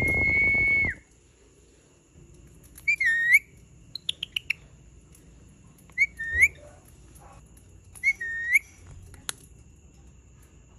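Indian ringneck parakeet whistling: one loud whistle held steady for about a second at the start, then short rising-and-falling whistle calls every two to three seconds, with a quick run of four or five chirps about four seconds in.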